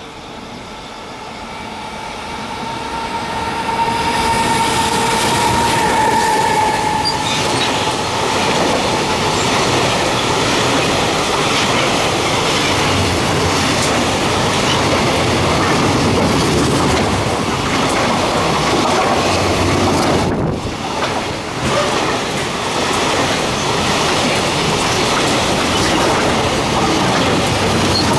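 A JR Freight EF210 electric locomotive approaches and passes at speed hauling a long container freight train. The sound builds over the first few seconds into the loud, steady rumble and wheel clatter of the container wagons rolling by, with a steady whine heard during the approach. The noise dips briefly about twenty seconds in.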